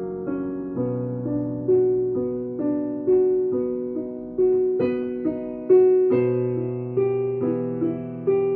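Piano playing a slow, even tune: single notes struck about twice a second and left to ring, over held lower chords.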